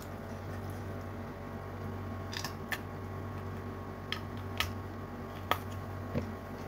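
A person chewing food with sharp mouth and teeth clicks and crunches, about six of them scattered through the middle of the stretch. A steady low hum of room tone runs underneath.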